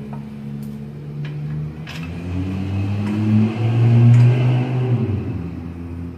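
A motor or engine running with a steady hum that shifts in pitch a few times, growing loudest about four seconds in, then easing off.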